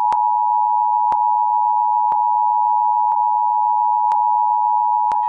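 Steady electronic alert tone of two close pitches just under 1 kHz, with a faint click about once a second.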